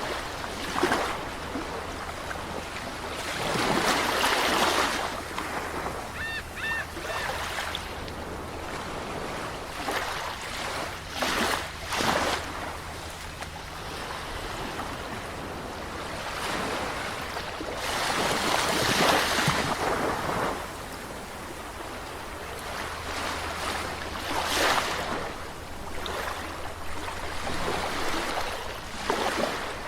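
Sea waves washing in and breaking on the shore, swelling and falling back every several seconds over a steady hiss of surf.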